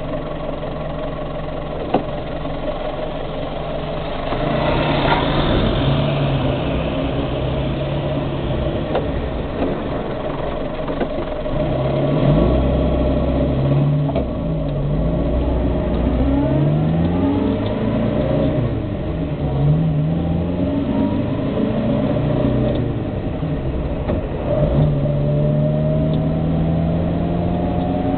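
Austin A40 Farina's BMC A-series four-cylinder engine heard from inside the car: running gently at first, then louder as the car pulls away about four seconds in, its pitch repeatedly rising and falling as it accelerates and eases off along the lane. A whine climbs in pitch near the end.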